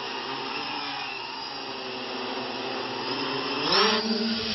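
Hexacopter's six electric motors and propellers buzzing steadily, then rising sharply in pitch about three and a half seconds in as the throttle goes up and it climbs.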